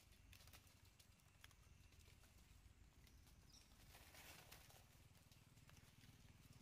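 Near silence with faint scattered clicks, and a brief soft rustle of dry leaves about four seconds in as a macaque shifts its weight on the leaf litter.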